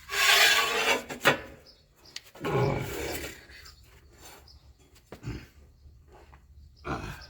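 Hand filing on the corner of a motor mounting plate to open up a misaligned bolt hole: two loud rasping strokes about a second each, a click between them, then a few lighter strokes.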